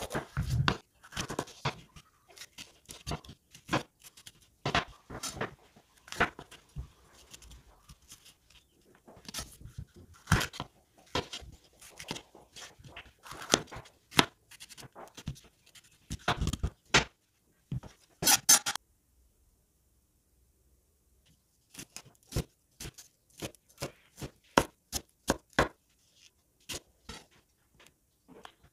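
Kitchen knife slicing a red bell pepper into thin strips on a bamboo cutting board: irregular sharp taps of the blade on the board, then a quicker, steadier run of chops after a short pause.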